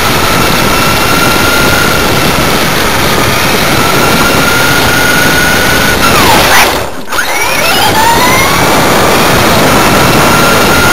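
Small electric motor whining at a steady high pitch over a loud rushing noise. About seven seconds in, the whine slides down, cuts out for a moment and then winds back up to its steady pitch.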